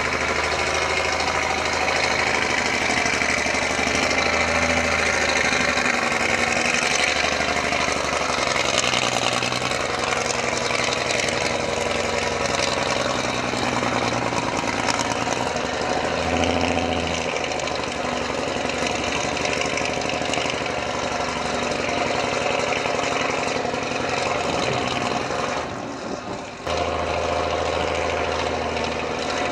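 Engine of a 1954 American LaFrance O-11A crash truck running as the truck drives off, the level briefly dipping near the end.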